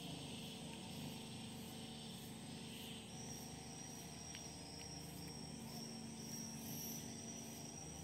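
Faint outdoor insect chorus: a steady high whine joins about three seconds in over a fast, even pulsing chirr. Two or three small clicks are heard.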